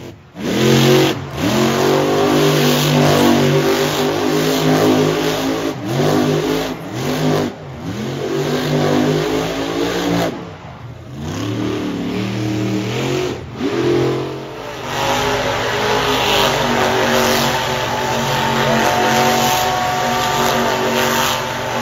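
Monster truck engine revving hard again and again, its pitch rising and falling with short dips as the truck spins donuts. From about two-thirds of the way in it is held at steady high revs.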